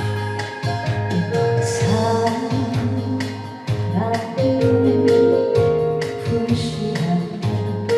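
A singer performing a Korean trot ballad, with a live electronic organ backing and a steady beat; the voice comes in about two seconds in.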